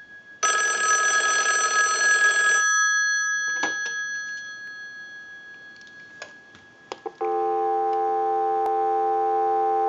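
Stromberg Carlson 554 rotary wall telephone's bell rings once for about two seconds on a ring cycle, showing the ringer works, and rings out. A few clicks follow as the handset comes off the hook. About seven seconds in, a steady dial tone starts, heard on the line through the phone's network.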